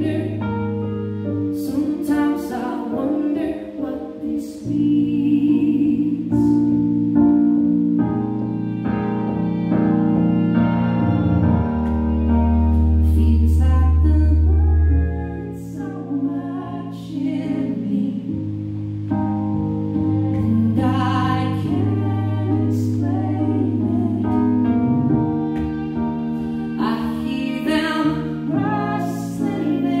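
Live keyboard and violin duo playing a song, the violin bowing sustained melody lines over keyboard chords, with a deep held bass note about twelve seconds in that lasts about three seconds.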